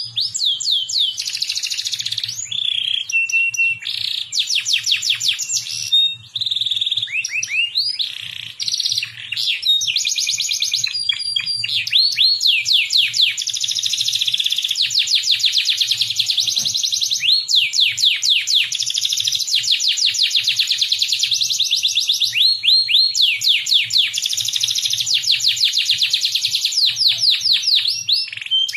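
Domestic canary singing a long, continuous song of fast trills. Each trill is a run of quickly repeated notes, and the trill type changes every second or two, with only a couple of short breaks.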